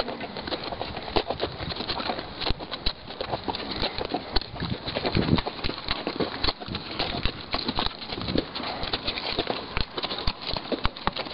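Horses' hooves clip-clopping at a walk on stony, sandy desert ground, heard from the saddle, with many irregular short knocks.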